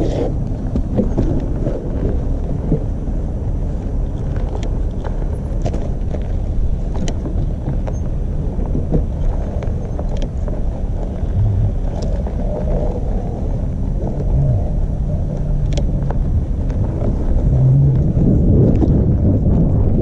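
Super 73 electric bike being ridden over rough ground: a steady low rumble with scattered clicks and knocks.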